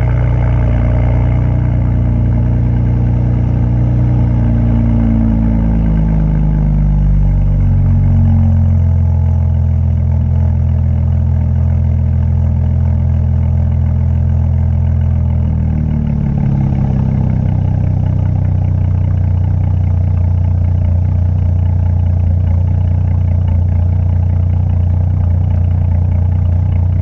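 2018 Audi S4's turbocharged 3.0-litre V6 running through an AWE Switchpath aftermarket exhaust, sounding beefy. The engine note falls in pitch over the first several seconds, then settles into a steady low drone with a brief change about sixteen seconds in.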